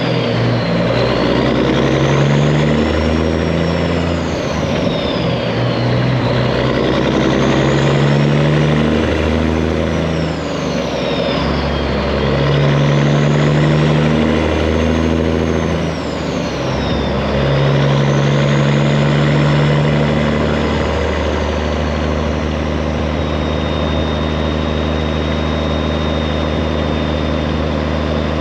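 Straight-piped Peterbilt 389 semi truck engine running loud, its engine speed climbing and dropping back several times. About two-thirds of the way through it settles into a steady run.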